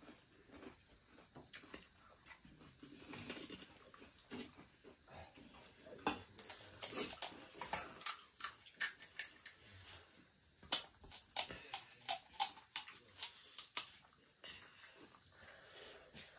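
Crisp, hollow pani puri shells being cracked open with fingers: two runs of sharp crackles, one about six seconds in and another from about eleven seconds, over a steady high-pitched hum.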